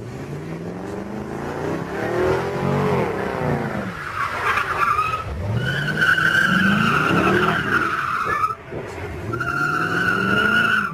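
A Chevrolet Corvette C5's V8 revving up and down several times while its tyres squeal as the car slides round. There is a long screech from about four seconds in and another near the end.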